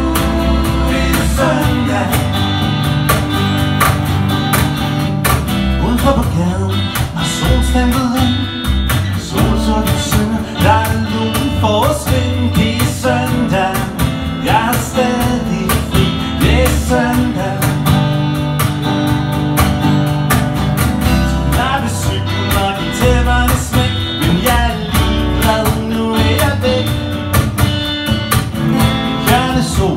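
Live acoustic band playing a bluesy song: two strummed acoustic guitars and a cajon keeping a steady beat, with a man singing.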